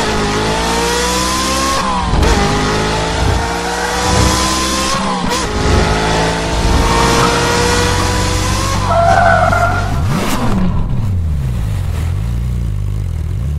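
High-performance car engine accelerating hard through the gears, its pitch climbing and then dropping at each upshift, about every three to four seconds. After about ten seconds the engine note falls away to a lower, wavering drone.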